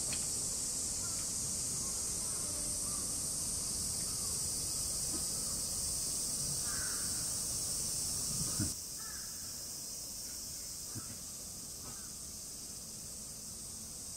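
Steady, high-pitched drone of a summer insect chorus, with a few faint crow caws and a single thump a little past halfway.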